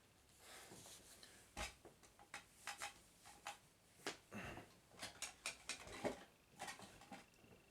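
Faint, irregular clicks and light knocks of equipment being handled, about twenty in a few seconds with no steady rhythm, as cables and a phone are connected to an amplifier.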